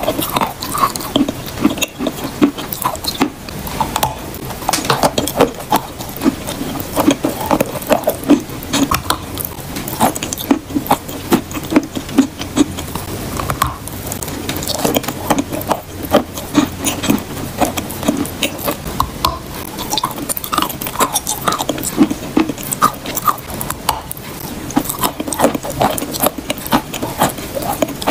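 Close-miked biting and chewing of lumps of edible chalk: a steady run of sharp crunches as the chalk breaks between the teeth.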